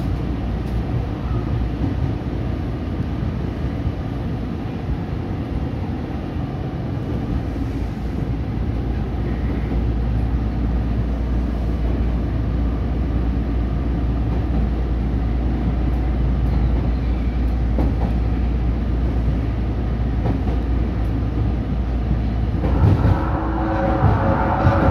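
Subway train running through a tunnel, heard from inside the front car: a steady low rumble of wheels and running gear. Near the end a louder sound with several high tones joins in briefly.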